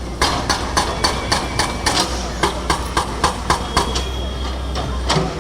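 A concrete breaker hammering at the old bridge's concrete, with sharp strikes about three to four a second over a steady low engine hum. The strikes stop near the end.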